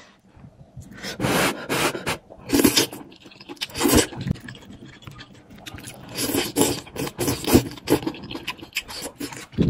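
Eating noodle soup: wet slurps and chewing noises coming in irregular bursts.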